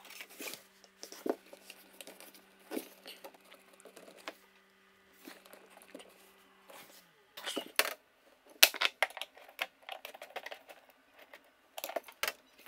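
Scattered small clicks and knocks as the adjustable levelling feet of a Bosch integrated dishwasher are twiddled by hand and turned with a screwdriver, with louder clusters of knocks past halfway and near the end.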